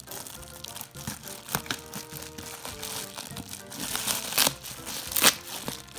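A plastic bubble mailer crinkling and rustling as it is cut with scissors and pulled open by hand, with sharper, louder crackles about four and five seconds in. Background music plays underneath.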